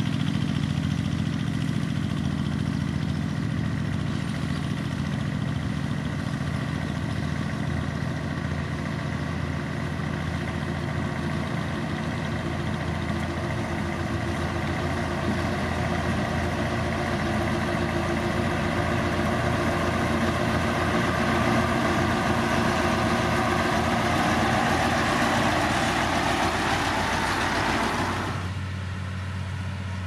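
Diesel engine of heavy road-building machinery running steadily, its sound growing stronger over the second half. Near the end it cuts off abruptly, giving way to a quieter, steadier engine hum.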